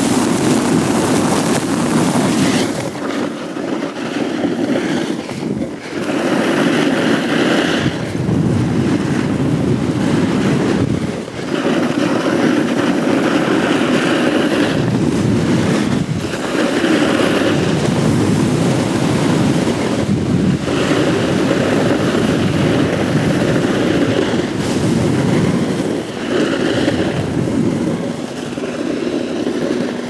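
Snowboard edges carving on groomed snow: a loud scraping hiss that swells through each turn and dips briefly every few seconds as the board rolls from one edge to the other.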